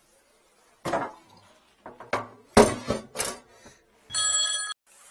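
Metal tools and pipe fittings knock and clatter as they are handled, with a few sharp knocks in the middle. Near the end comes a short ringing tone of about two-thirds of a second that cuts off abruptly.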